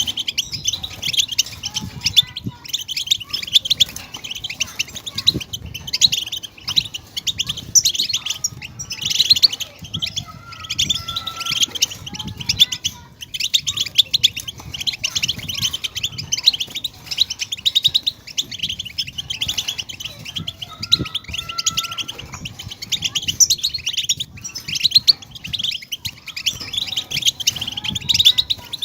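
European goldfinch twittering song: a rapid, continuous run of high chirps and trills.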